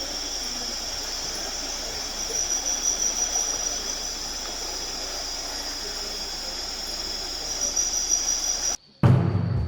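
Steady high-pitched drone of a rainforest insect chorus, two unbroken shrill tones over a hiss. Near the end it cuts off abruptly and music with a drum hit comes in.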